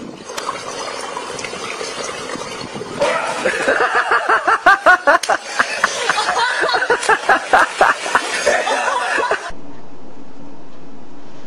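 Swimming-pool water sloshing, then a person laughing hard in quick repeated peals for about six seconds. Near the end it cuts abruptly to a steady hiss.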